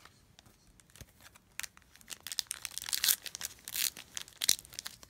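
Foil Pokémon booster pack wrapper being crinkled and torn open: faint clicks at first, then a run of sharp crinkles from about two seconds in.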